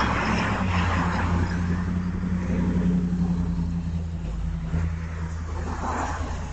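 Cars driving past on a residential street, with tyre noise over a low engine hum. A second car passes closer about six seconds in.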